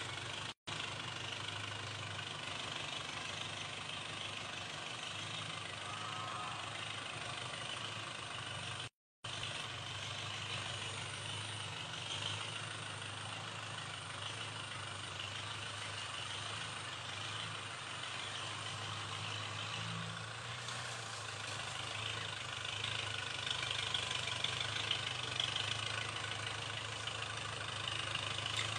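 Kubota compact tractor's diesel engine running steadily while it pulls a cultivator through the soil. The sound cuts out briefly twice in the recording.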